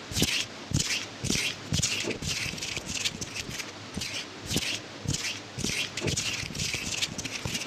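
Hands swishing and rubbing close to a handheld recorder's microphones in a massage motion, about two strokes a second, each stroke with a soft low thud.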